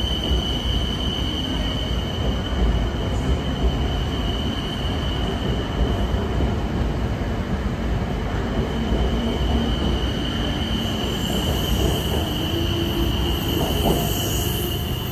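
BTS Skytrain electric train running along an elevated station platform: a steady rumble of wheels and motors with a constant high whine over it.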